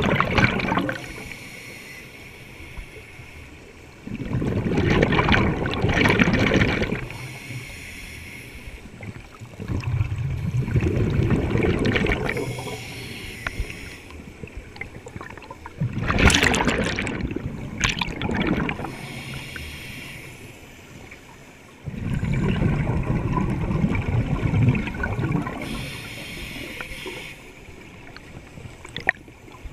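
Scuba diver breathing through a regulator underwater: four bubbling exhalations, each a few seconds long, with quieter hissing inhalations between them.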